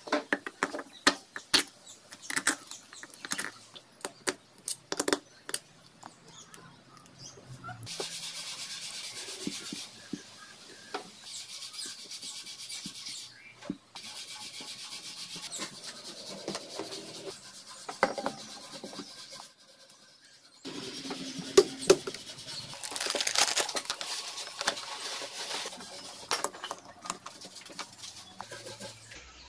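Small metal engine parts clicking, knocking and scraping as they are handled and fitted by hand onto a motorcycle engine crankcase: a quick run of sharp clicks at first, then stretches of steady hiss broken by scattered clicks and rubbing.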